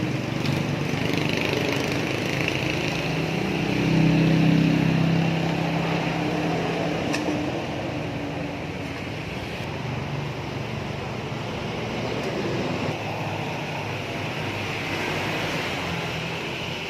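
Ingco 1.5 HP electric water pump running steadily on a test run with its newly replaced bearing and water seal, a continuous motor hum that swells slightly about four seconds in.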